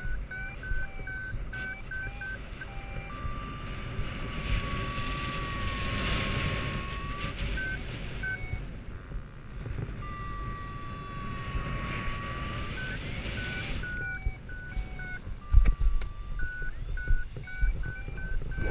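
Paragliding variometer beeping in runs of short, even beeps about three a second, broken by long held tones that sag and recover in pitch. Under it, wind rumbles and hisses on the microphone, swelling as the glider speeds along the slope.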